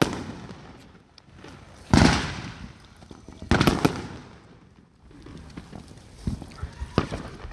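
Fireworks from mortar tubes going off in a string of sharp bangs with short fading tails. The loudest comes about two seconds in, a close pair follows a second and a half later, and smaller bangs come near the end.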